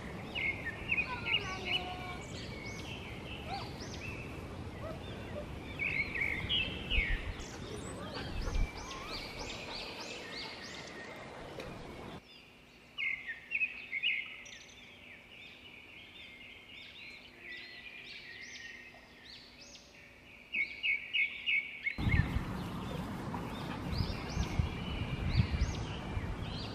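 A squirrel in a tree chattering in alarm: repeated runs of short, sharp, high chirps, several a second, over steady background noise.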